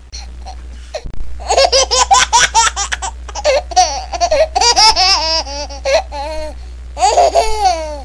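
High-pitched laughter: quick runs of giggles, then longer rising-and-falling squeals of laughter.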